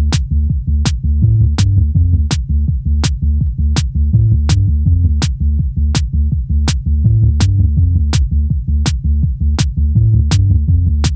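Electronic background music with a steady beat of sharp clicks, about three every two seconds, over a repeating bass line.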